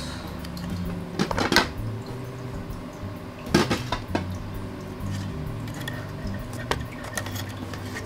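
Clicks and clatter of a 2.5-inch Kingston SSD being handled and pressed into place in a laptop's plastic drive bay, with the loudest knocks about a second and a half in and again about three and a half seconds in, and a few lighter ticks after.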